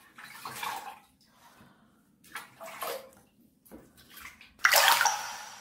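Water sloshing and splashing in short bursts in a small plastic pet bathtub as a Maltese dog is washed by hand. The loudest splash comes near the end and fades away.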